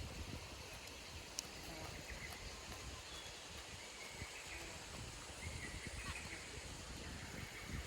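Faint outdoor ambience: a low rumble of wind or background noise, with soft, scattered short high chirps and one small sharp click about a second and a half in.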